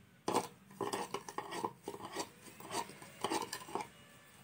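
Metal spoon scraping and clinking against a ceramic bowl in quick, irregular strokes while stirring sugar into curd to dissolve it; the strokes stop shortly before the end.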